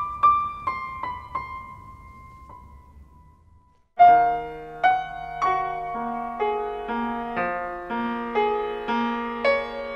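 Soft piano music. A few high notes ring out and die away, the sound falls almost silent, and about four seconds in a slow piano passage begins, with notes and chords struck about twice a second.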